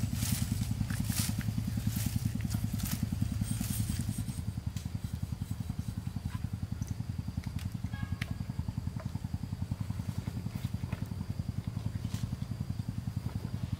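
A small engine running steadily with a low, rhythmic pulse. Over it, during the first four seconds, come cleaver chops knocking on a wooden cutting board about every half second.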